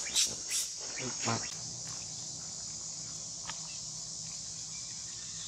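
Steady high-pitched chorus of insects, with a few short rustles of dry leaves in the first second and a half as a young macaque runs across the leaf litter.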